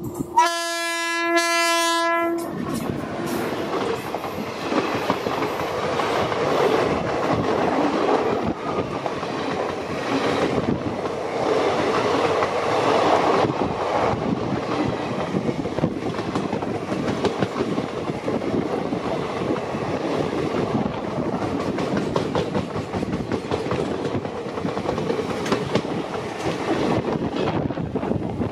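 WAP-5 electric locomotive sounding one horn blast of about two seconds just after the start, followed by the steady rolling noise of its passenger coaches passing close by.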